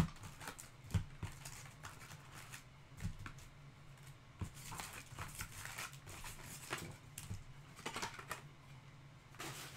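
Scattered light clicks, taps and rustles of hands working at a desk, coming irregularly about once a second over a low steady hum.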